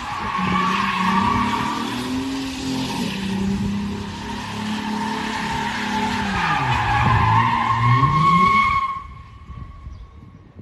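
Toyota Mark X's V6 engine revving hard while its rear tyres spin and squeal through a smoky burnout donut. The revs dip and climb again about seven seconds in, and the sound cuts off sharply a couple of seconds later.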